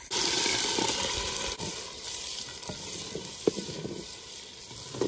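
Besan batter poured into hot oil and fried onions in a clay pot, hissing loudly the instant it hits the oil. The sizzle eases over the next few seconds as a wooden spoon stirs it, with a few light knocks.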